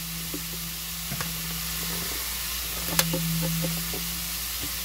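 Shredded beetroot sizzling steadily in olive oil in a frying pan, with a few light taps and one sharp click about three seconds in.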